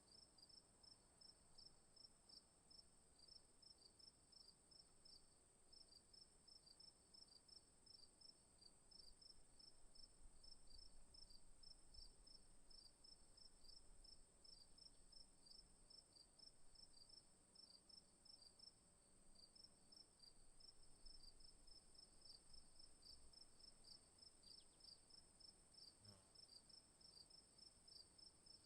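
Faint crickets chirping: a continuous high, steady trill together with evenly repeated chirps, about three a second.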